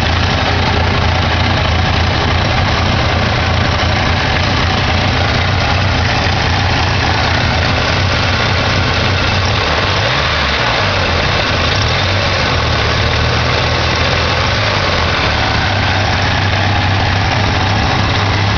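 1987 Ford Ranger's 2.3-litre four-cylinder engine idling roughly, a steady low drone that wavers slightly; the owner takes the rough idle for a carburetor that needs rebuilding or tuning.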